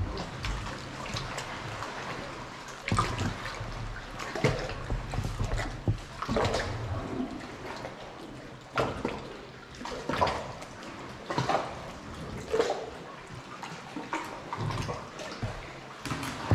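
Water splashing and sloshing, with a distinct splash every second or two over a steady wash of water.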